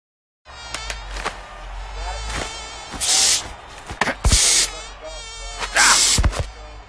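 Cartoon sound effect of a housefly buzzing, its drone wavering in pitch. It starts after a brief silence, with a few sharp knocks and three short, loud bursts of rushing noise about three, four and six seconds in.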